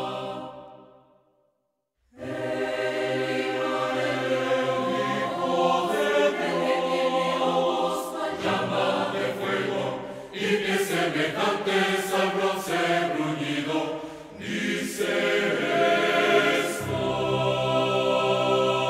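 Large mixed choir of men's and women's voices singing. A held chord dies away at the start and there is a brief silence. The choir comes back in about two seconds in and sings on, ending on a long sustained chord.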